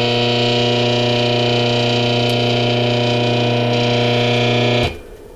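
Old capacitorless electric motor from a drill, rusty cast housing, running on mains power with a loud, steady electrical hum and buzz; a bit noisy, but it still works. The hum cuts off suddenly near the end as the motor is switched off.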